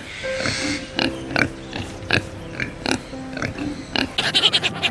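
Pigs grunting in many short, separate calls.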